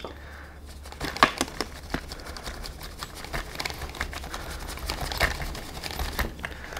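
A stiff paintbrush scrubbing dirt off the plastic suspension arm of an RC buggy: a run of quick, irregular scratchy brush strokes with small clicks, over a low steady hum.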